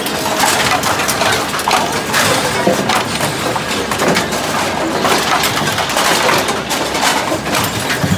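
Bowling-alley pinsetter machinery running: a steady loud clatter of metal parts, belts and pulleys, with frequent short knocks and clacks.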